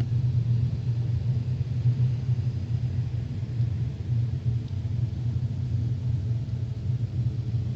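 A steady, low rumbling hum in the night air, of unknown source. The recorder wonders whether it is one of the mysterious noises reported around the world.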